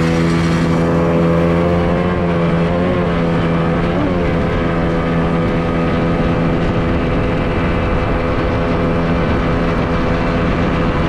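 Yamaha 30 hp two-stroke outboard jet running hard on a speed run. It revs up just after the start, then holds a steady high pitch with only slight wavers.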